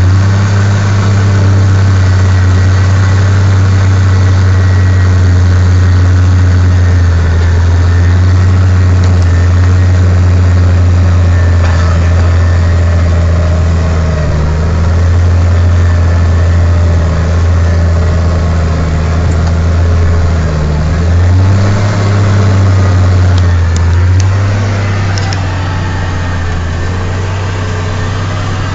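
Case IH CVX 1170 tractor's engine running steadily under load, heard from inside the cab, while pulling a reversible plow through hard ground. The engine note wavers briefly about three quarters of the way through.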